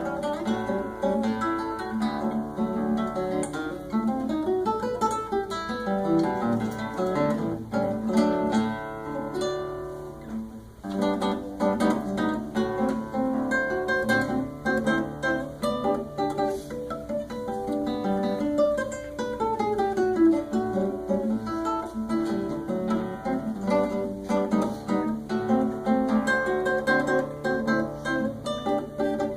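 Classical guitar playing a lively choro with quick plucked melody over a bass line, easing briefly about ten seconds in and running down the neck in falling runs near the twenty-second mark.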